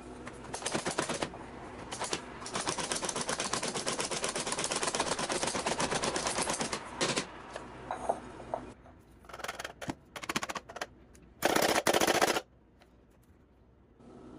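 Walnuts, macadamias and pecans being chopped in a small kitchen chopper: a fast, even rattle of nut pieces against the chopper bowl, with a short burst first and then a long run of several seconds. Scattered clicks follow, then a brief loud rattle near the end.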